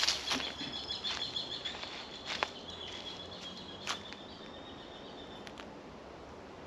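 Footsteps on dry leaf litter and twigs, a crackle or snap about every second, growing fainter as the walker moves away, over a steady high-pitched buzz that fades out near the end.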